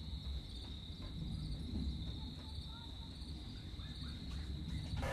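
Crickets trilling in a steady, unbroken high chorus over a low background rumble, with a few faint short chirps in between; the trill cuts off abruptly just before the end.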